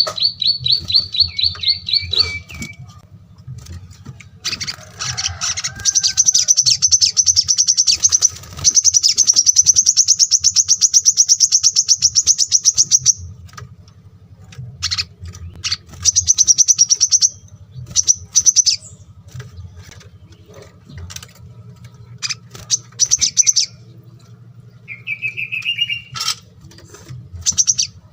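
Small songbirds singing in rapid high trills of fast repeated notes: one long trill in the middle, with shorter bursts and a brief lower phrase later on. A faint steady low hum lies underneath.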